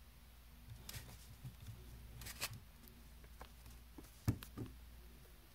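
Handling noise from a camera being repositioned on a table: a few light knocks and rustles, with one louder thump about four seconds in.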